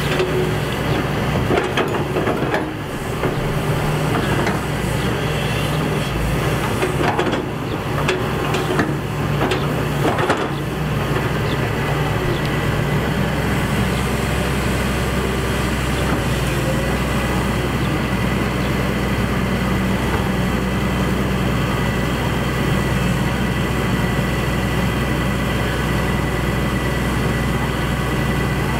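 Heavy diesel engine of construction machinery running steadily, with scattered knocks and clanks about two seconds in and again around eight to ten seconds in.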